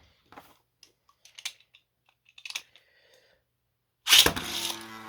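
Faint plastic clicks and taps as Beyblade tops are readied on their launchers. About four seconds in, a sudden loud launch: the tops hit the stadium and spin with a steady whirring hum.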